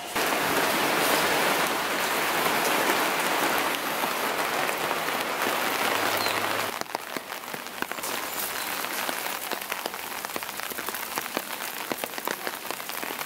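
Rain falling steadily, dense and even at first, then quieter about halfway through, with many separate drops heard hitting surfaces.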